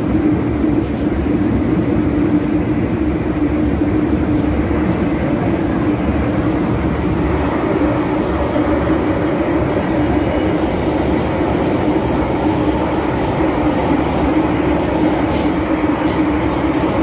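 MTR Tsuen Wan line M-Train heard from inside the passenger car, pulling out of a station and running into the tunnel: a steady rumble of wheels and running gear with a constant hum. From about ten seconds in, a run of sharp clicks rides over it.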